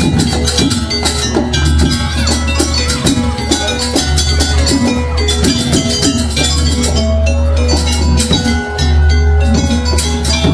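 Live jaranan gamelan music from a Javanese ensemble: rapid, dense drum and metal-percussion strokes over ringing pitched gong-chime tones and a steady low drone.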